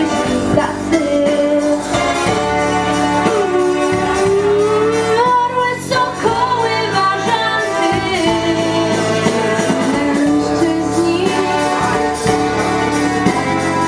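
A solo singer performing with instrumental backing, holding long notes and sliding between pitches.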